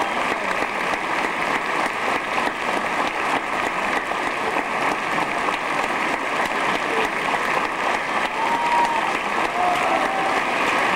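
Theatre audience applauding steadily during a curtain call, with a couple of brief calls from the crowd near the end.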